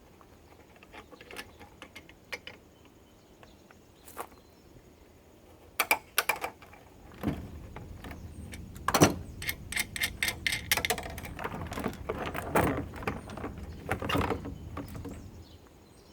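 Plastic parts of an air purifier being handled and pried apart by hand: a few scattered clicks, then a busy run of clicks, knocks and rattles, the loudest about nine seconds in.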